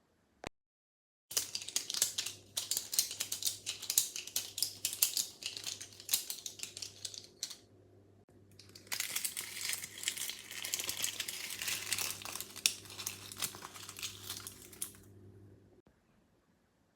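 Dense crackling and crinkling of crumpled material, made to imitate the crackle of a fire, with a faint low hum underneath. It starts about a second in, pauses briefly around the middle, comes back hissier, and stops shortly before the end.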